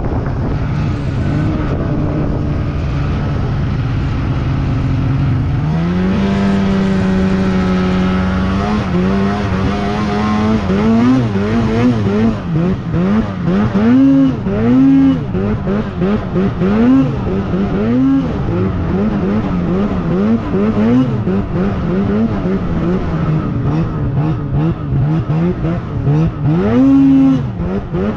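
Ski-Doo Summit X snowmobile's turbocharged two-stroke engine running steadily, then revving up about six seconds in. After that the revs rise and fall again and again as the throttle is worked riding through powder.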